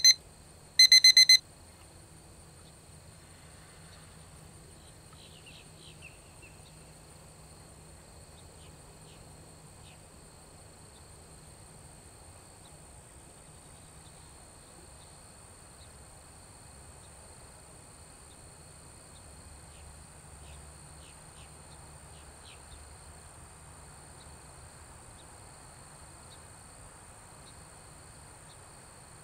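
A loud electronic beep, several evenly spaced high tones sounding together, about a second in; it marks a 30-second observation interval on the running clock. After it comes a steady faint high drone of insects over quiet outdoor background.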